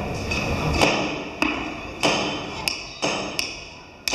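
A metal bell or similar ringing metal struck about seven times at uneven intervals. Each stroke rings on in clear high tones and fades before the next.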